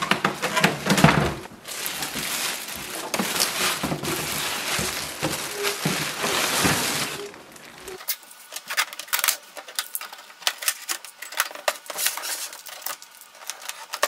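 Clear plastic bag crinkling and rustling as it is handled around a printer being lifted out of its cardboard carton. After about eight seconds this gives way to a quieter run of quick clicks and ticks as the packing tape is pulled off the printer's plastic body.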